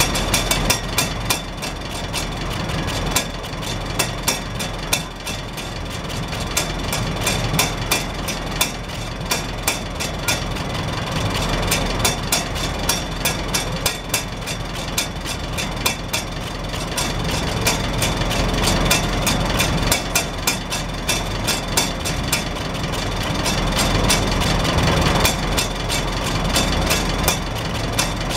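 Farmall Super H's four-cylinder gasoline engine idling steadily, heard at the exhaust stack, with the hinged flapper rain cap on top of the stack clicking rapidly as the exhaust pulses lift and drop it.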